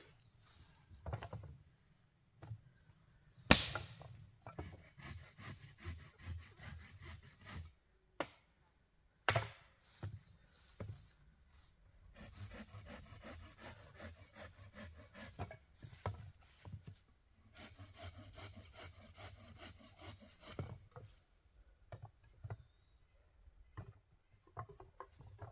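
Wood being cut with a hand saw in three runs of quick, even back-and-forth strokes, with two sharp knocks against the wood between them.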